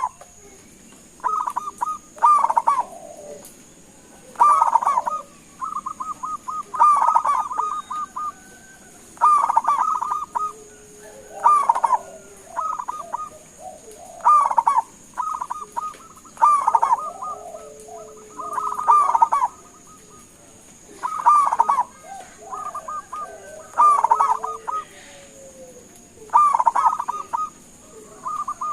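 Zebra dove (local perkutut) cooing: short, rapid, stuttering phrases repeated about every two seconds, with softer phrases between the louder ones.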